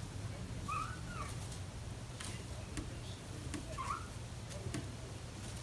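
Two short, high mews from a British Shorthair kitten about five weeks old, one about a second in and one near four seconds, over scattered light clicks.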